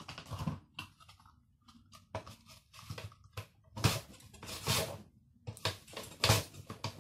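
Plastic hand guard of a mandoline slicer pushed back and forth across the blade: a run of uneven scraping strokes, the loudest about four, five and six seconds in. The strokes are hard going, which the user finds somewhat difficult.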